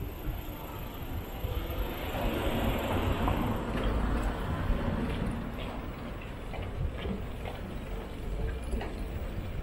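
City street ambience recorded from a moving bicycle: a steady low rumble of wind on the microphone, a vehicle passing with a swell of noise about two to four seconds in, and scattered small clicks and ticks.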